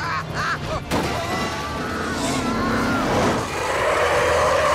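Cartoon soundtrack of a runaway cartoon steam train: music and effects, with a sharp hit about a second in, then a sustained screech like skidding wheels that starts about three and a half seconds in.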